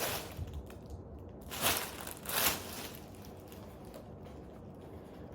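A backpack handled by hand: three short rustles or crinkles of fabric and packaging, at the start and twice around two seconds in, then quiet handling.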